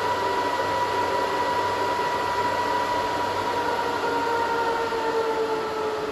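SuperMicro FatTwin server node's cooling fans running at high speed during boot, a steady whine over rushing air. About five seconds in the fans begin to ramp down, the whine sliding lower in pitch as they slow smoothly on a precise curve rather than in steps.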